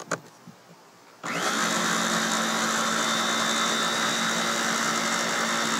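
Food processor motor switches on about a second in, spinning up quickly, then runs steadily as it purees a dill pesto of dill, garlic, pine nuts, parmesan and olive oil. A light click comes just before it starts.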